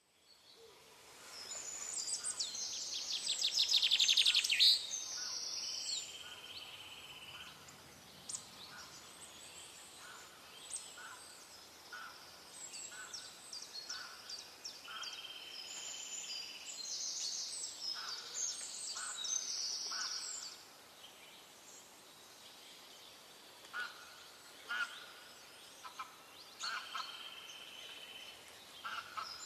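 Several birds calling and chirping: fast trills and short high chirps, loudest about four seconds in, thinning to sparse short calls after about twenty seconds.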